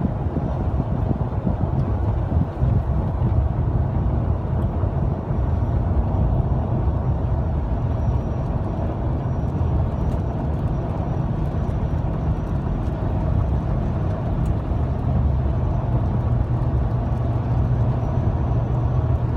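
Steady road and engine noise of a car driving, heard from inside the cabin, with a constant low rumble.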